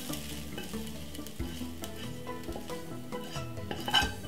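Hot fried rice being scraped out of a wok with a spatula: soft scrapes and small clicks, with a louder scrape about four seconds in.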